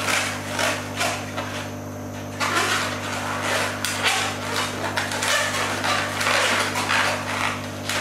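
Long latex modelling balloon squeaking and rubbing in the hands as it is twisted into a balloon dog, in short irregular bursts with a brief lull about two seconds in.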